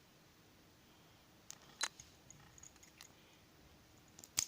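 A few faint, sharp clicks of small metal parts being handled, a Medeco lock worked by hand, with a louder double click near the end.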